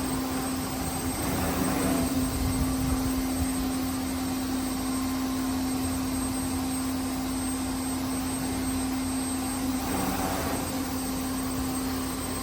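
CNC router's spindle running at a steady speed, giving an even, constant whine over a low hum.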